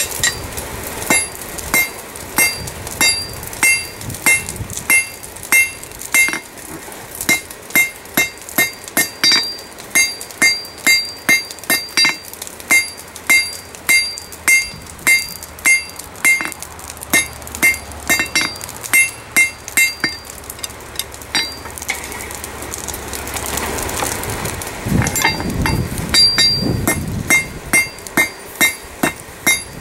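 Hand hammer striking the end of a glowing half-inch rebar bar held upright on a steel anvil, upsetting the hot end. Steady blows about two a second, each with a clear metallic ring, with a break of a few seconds about three-quarters through before the hammering resumes.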